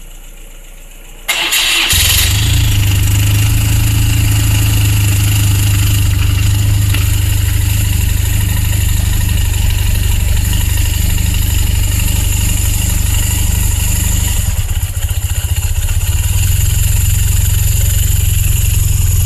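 A car engine starts about a second in and then runs steadily, with a constant low hum and a faint steady high whine over it.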